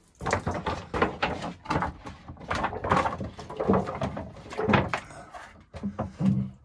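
Irregular clatter, knocks and rustling of hands handling a print and the developing trays in a cramped darkroom. The noise thins out near the end.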